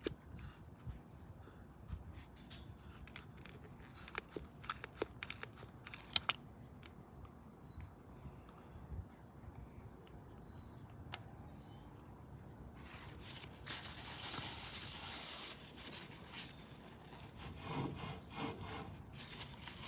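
Hand grease gun being worked on a sway bar hitch's grease fitting: a few sharp clicks, then a few seconds of rubbing about two-thirds of the way through. A bird chirps short falling notes every few seconds.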